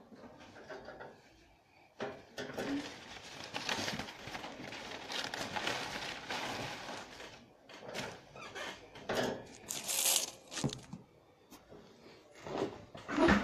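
Handling noise of a phone being positioned and set up: rubbing and rustling against the microphone, broken by knocks and clicks, loudest near the end.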